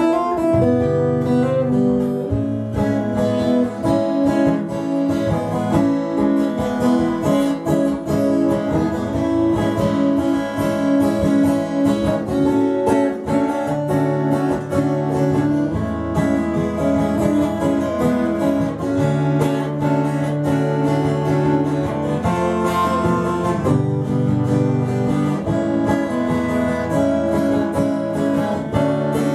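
Acoustic guitar played solo: a continuous instrumental passage of picked and strummed chords with a steady rhythm, no singing.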